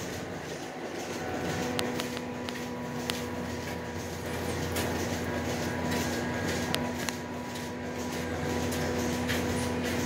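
A steady machine hum with a few held tones, the lowest coming in within the first second, and a few faint clicks over it.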